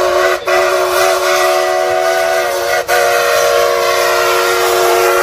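A train horn sounding one long, steady chord of several notes, with two brief dips.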